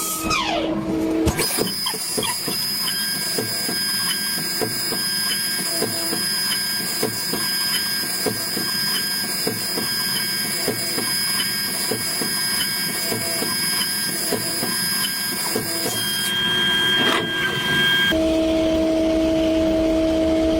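CNC lathe machinery running: steady high whines with regular ticking about twice a second. A whine falls in pitch right at the start, and the machine sound changes abruptly about a second and a half in and again near the end, where a lower steady hum takes over.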